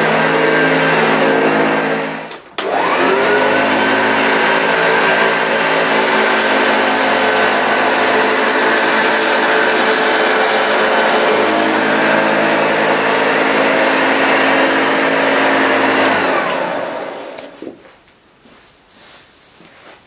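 Hoover Junior U1040 upright vacuum cleaner running on carpet with a steady motor whine. About two seconds in the sound briefly drops out, then comes back with the motor climbing back up to speed. Near the end it is switched off and the whine falls away as the motor runs down.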